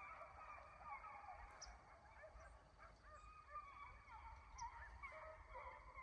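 Faint, distant pack of hunting hounds baying in many overlapping, wavering calls as they run a deer's track.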